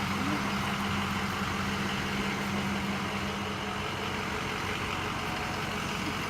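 Motor vehicle running with a steady engine and road noise; a low steady hum in it drops away about three and a half seconds in.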